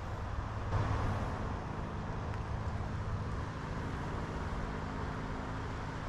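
Steady hum of road traffic heard through the trees.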